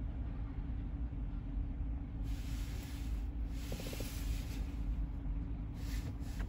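CSX freight train of covered hopper cars rolling through a grade crossing, a steady low rumble heard from inside a waiting car. A hiss comes in about two seconds in and again near the end.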